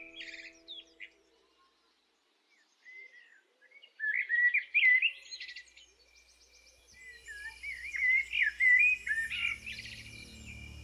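Songbirds chirping and warbling in short, quick phrases, with gaps between them. A faint steady high hum joins in about two-thirds of the way through.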